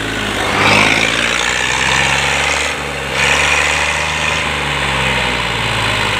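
Farm tractor engine running under load as it pulls a heavily loaded trolley over soft ground. The engine runs steadily, picking up a little about three seconds in.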